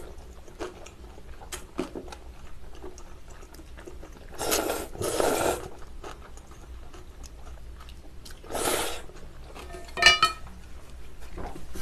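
Cold buckwheat noodles being slurped from metal bowls: a long double slurp about four to six seconds in, another near nine seconds and a short sharp one about ten seconds in. Light clicks of chopsticks and spoons against the metal bowls come in between.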